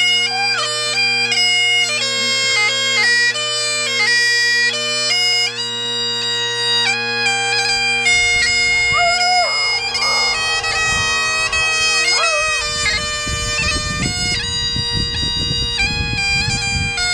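Scottish Great Highland bagpipes playing a tune, the chanter stepping between notes over steady drones. From about halfway through, a black Labrador howls along with long wails that rise and fall.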